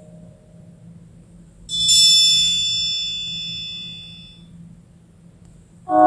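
Samsung Galaxy S25+ notification tone played back greatly slowed down: a single bright, bell-like chime strikes about two seconds in and rings out slowly, fading over a few seconds. A lower-pitched tone begins near the end.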